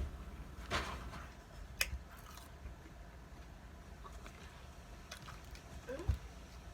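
Faint close-up eating sounds: a person chewing, with a few short wet smacks and clicks.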